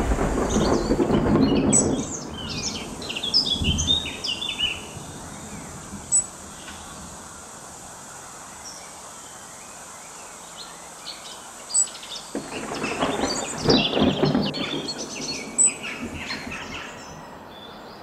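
Surf washing over rocks for about the first two seconds, then birds chirping in short, scattered calls over a quiet outdoor background, busier again in the second half.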